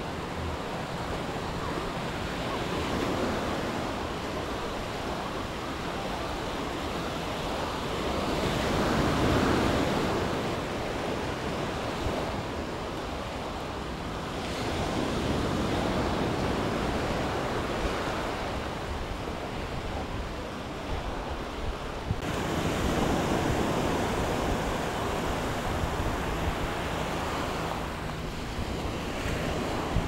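Small Mediterranean waves breaking and washing up a sandy shore, the surf swelling and fading every six or seven seconds. Wind rumbles on the microphone underneath.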